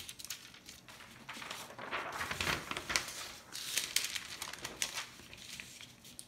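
Tracing paper and a paper handout rustling and crinkling as the handout is slid out from under the tracing paper. The crackling comes in uneven bursts and is loudest in the middle.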